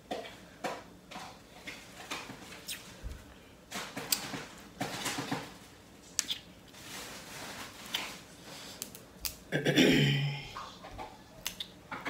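Close-miked clicks and crackles of crab leg shells being cracked and picked apart by hand with a small pick, with eating sounds between. A short voiced sound stands out about ten seconds in.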